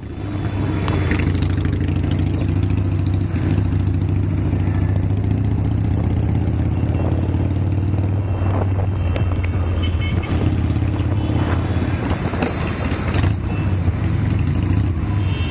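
Harley-Davidson Sportster 883 V-twin engine running steadily under way, with other motorcycles riding close around it.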